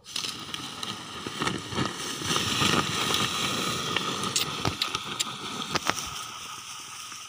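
Dry cut stalks and loose soil crackling and scraping as something is dragged or slides through them down a steep slope, with many sharp snaps of dry twigs.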